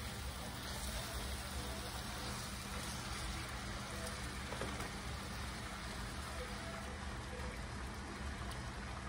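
Yellowtail fish sizzling steadily in hot oil in a skillet.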